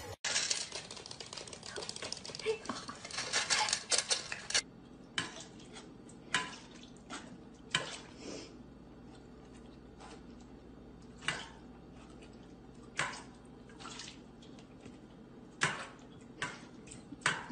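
Stainless-steel pet bowls clinking as a dog eats and drinks from them: sharp metallic clinks every second or so, after a few seconds of denser clattering near the start.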